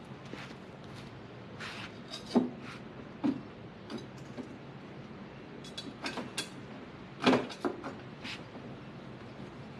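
Scattered clicks, knocks and short scrapes of hand work taking a car bumper off, with two sharper knocks, one about two and a half seconds in and one about seven seconds in.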